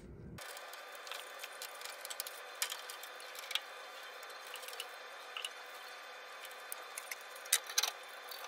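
Faint scattered clicks and taps of hands handling parts and wiring inside an open wall-hung gas combi boiler during reassembly, over a steady hiss of room tone, with a couple of sharper clicks near the end.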